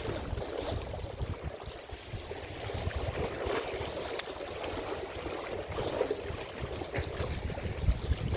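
Strong wind buffeting the microphone in uneven gusts over the sound of water lapping, with a few faint clicks.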